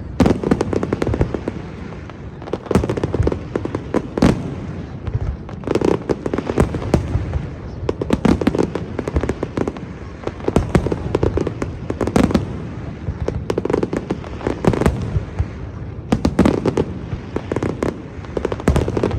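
Fireworks display: a continuous barrage of aerial shell bursts, sharp bangs and crackling in quick clusters over a low rumble.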